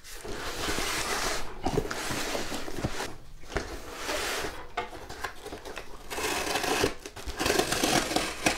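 Packing material and cardboard rustling and scraping as a shipping box is opened and its contents pulled out, with a few light knocks.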